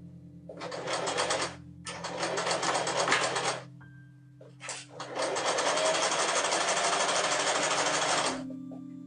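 Electric domestic sewing machine stitching, its needle running in rapid strokes in three runs: a short burst, a longer run, then a steady run of about three seconds, with brief pauses between as the fabric is repositioned.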